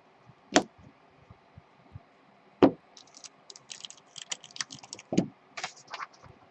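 A run of light clicks and taps: a few sharper knocks, then a quick, irregular flurry of small clicks in the middle.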